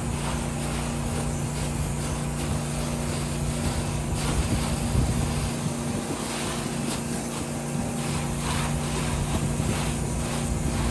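Pressure washer engine running steadily, with the hiss of water spraying that swells and fades.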